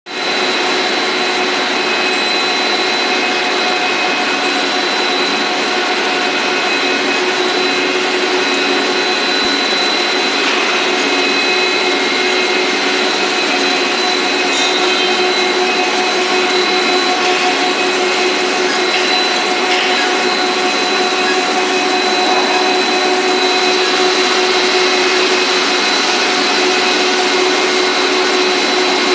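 Cable production line machinery running steadily: a constant wash of machine noise with a few steady hums and whines through it.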